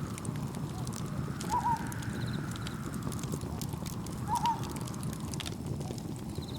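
Layered night-ambience mix: a campfire crackling with sharp pops, soft waves swelling in and out, and faint cricket chirps. A short animal call is the loudest thing, repeating three times about every three seconds.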